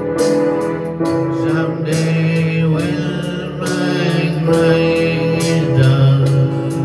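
A man singing a slow ballad live, accompanying himself on an electronic keyboard.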